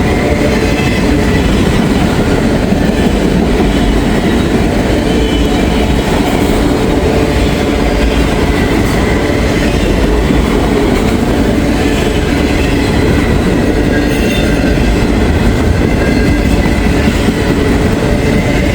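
Freight train cars rolling past, a steady rumble of steel wheels on the rails with a faint wheel squeal.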